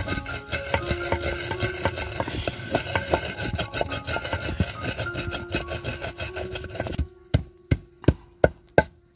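Pestle pounding garlic cloves and roasted coriander seeds in a deep mortar: a steady run of dull thuds, about three a second. The strikes stand out clearly over the last two seconds.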